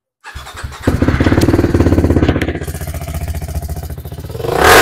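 TVS Apache RR 310's single-cylinder engine, breathing through an aftermarket full-system exhaust, starting about a third of a second in and running at a fast idle that eases off, then revved up near the end.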